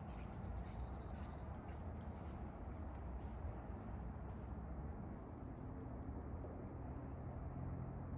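Crickets trilling steadily in a continuous high chorus of two even pitches, over a faint low rumble.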